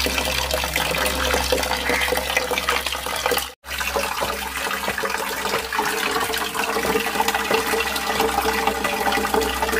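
Steady rush of running water, an even hiss that breaks off for an instant about three and a half seconds in, with a faint steady hum beneath it.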